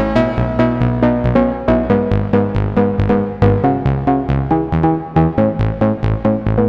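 Roland System-1 synthesizer patch playing a rapid sequenced pattern of short plucked notes that step through changing pitches over a bass line.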